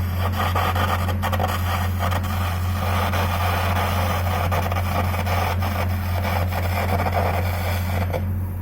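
Electric arc crackling and spitting steadily during welding or arc gouging on steel, over a constant low engine hum. The arc cuts off about 8 seconds in, and the hum carries on.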